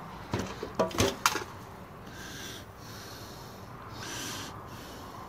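A quick run of sharp clicks and clacks in the first second and a half as the small metal over-temperature switch (KSD301 thermostat) and the cordless drill are handled right after drilling out its rivet, then two soft breaths.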